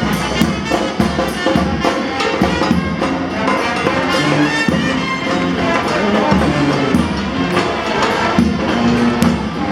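Brass band playing with trumpet, trombone and drums, a steady rhythmic beat under the horns.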